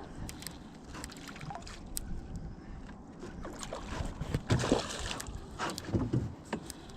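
Handling noises in a small fishing boat: scattered knocks and clunks, loudest about four and a half and six seconds in.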